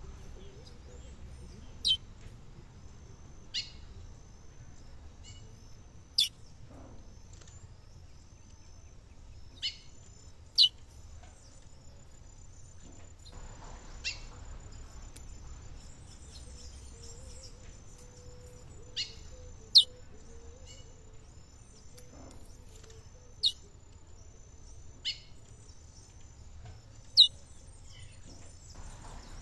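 Female curió (chestnut-bellied seed finch) giving short, sharp, falling call notes every few seconds, about a dozen in all. A steady high insect trill runs behind them.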